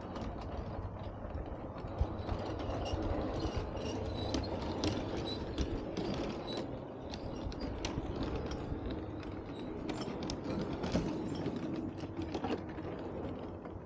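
Bachmann G-scale model diesel locomotive running along garden-railway track with its wagons: a steady mechanical running noise with irregular sharp clicks of wheels over the rail joints.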